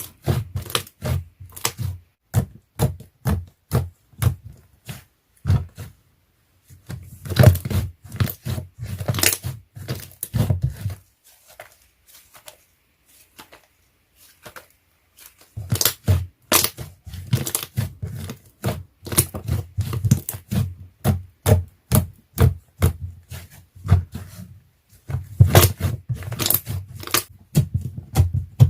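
Slime being squeezed, stretched and pressed by hand, giving quick runs of sharp pops and clicks. There is a pause of a few seconds about halfway through.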